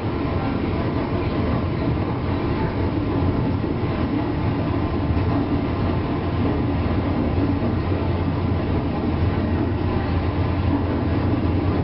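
Steady running noise of a JR East 201 series electric commuter train with armature chopper control, heard inside motor car MoHa 201-254 directly above its chopper control equipment.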